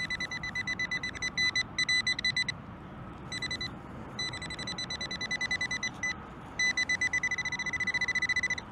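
Nokta AccuPoint pinpointer beeping in one steady high tone, about eight beeps a second, in several runs with short gaps; near the end the beeps run together almost continuously as it closes in on a buried coin.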